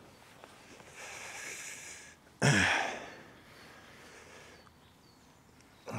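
A man breathing in with a soft hiss, then letting out one loud sigh about two and a half seconds in, its pitch falling as it fades.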